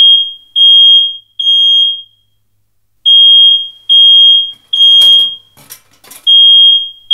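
Smoke alarm beeping a high, piercing tone in groups of three with a pause between groups: the temporal-three pattern that signals smoke or fire. A few knocks sound between the beeps about five to six seconds in.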